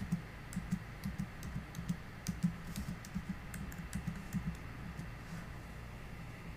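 Typing on a computer keyboard: a quick, uneven run of key clicks as a short line of text is entered, thinning out about two-thirds of the way through.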